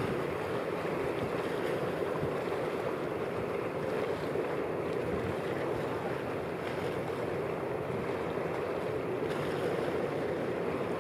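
Wind and choppy estuary water: a steady, even rushing noise.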